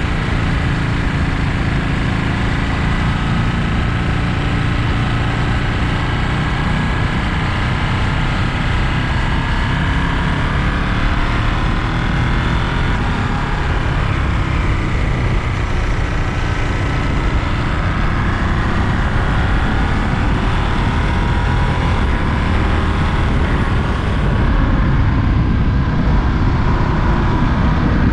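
Ducati Monster 937's 937 cc Testastretta V-twin engine running under way, its pitch slowly rising and falling with the throttle. It gets a little louder near the end.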